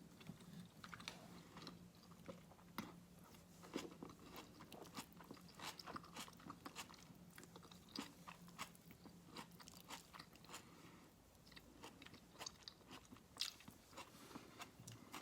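A person eating, quietly chewing with irregular crunches and small mouth clicks. A faint steady low hum runs underneath and stops about eleven seconds in.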